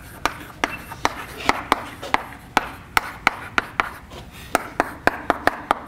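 Chalk writing on a blackboard: a quick, irregular run of sharp taps, about three a second, with faint scratches between them.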